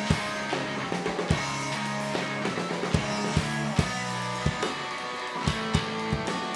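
A post-rock band plays live on electric guitars, bass and drum kit. Drum hits come roughly every half second under held, ringing guitar and bass notes.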